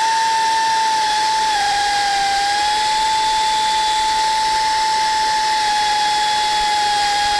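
Angle-head drill with a 1/4-inch bit running steadily as it drills out a stripped bolt hole in an engine's intake manifold, opening it to size for a Heli-Coil tap. It starts suddenly and holds a steady whine over a hiss, dipping slightly in pitch about one and a half seconds in.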